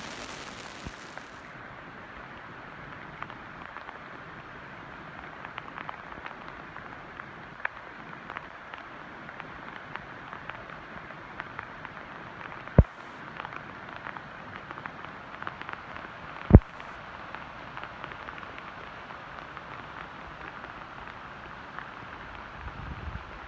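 Steady heavy rain falling, an even hiss with many small drop ticks. Two sharp, loud knocks stand out about 13 and 17 seconds in.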